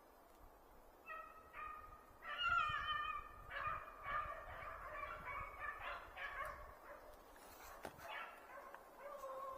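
Beagle hounds baying faintly, a string of repeated overlapping howling calls from about a second in, as the pack runs a rabbit on its scent.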